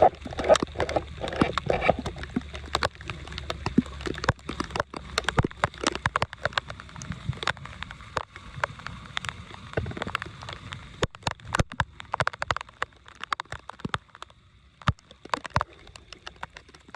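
Water sloshing and gurgling, with many sharp splashes and clicks throughout. A low steady rumble underlies the first six seconds or so.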